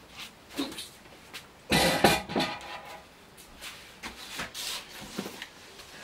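Packing material being handled as parts are lifted out of a cardboard shipping box: a plastic bag and foam sheets rustling and scraping against the cardboard in short bursts, the loudest about two seconds in.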